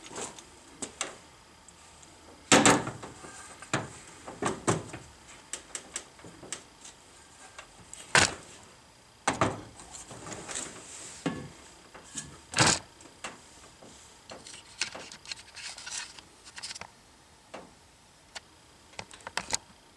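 Scattered metal clunks, knocks and scrapes as an intake manifold is handled and lowered into place on a Chevrolet 5.7 Vortec V8, with three sharper knocks standing out, the first a few seconds in.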